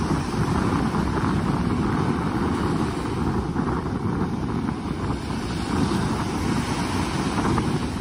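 Small waves washing up a sandy beach, mixed with wind noise on the microphone as a steady low rumble.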